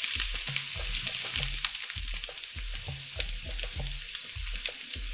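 Rice, shrimp and egg frying in a non-stick frying pan on low heat, a steady sizzling hiss with faint clicks. A low beat repeats about twice a second underneath.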